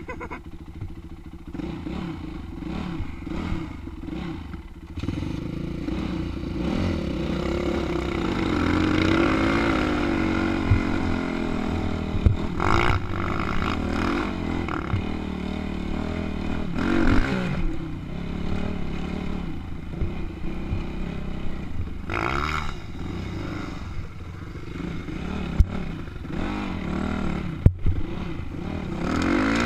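Dirt bike engine running at a low level at first, then louder from about five seconds in as the bike is ridden, its revs rising and falling. A few sharp knocks and rattles come from the bike over the rough sand track.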